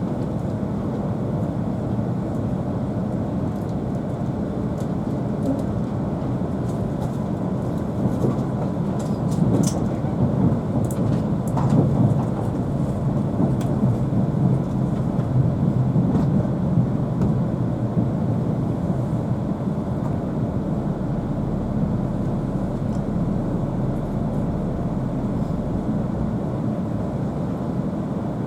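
Steady low rumble of an E2 series Shinkansen running, heard from inside a passenger car, with a faint steady whine above it. It grows louder, with a few light clicks, through the middle stretch before settling back.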